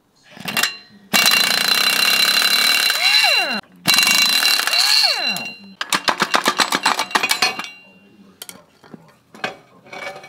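Pneumatic impact wrench running in two bursts of about two seconds each, each winding down with a falling whine as the trigger is released, then a quicker run of rapid rattling hammer blows, spinning nuts off the bolts at the axle end. A few scattered metal knocks follow.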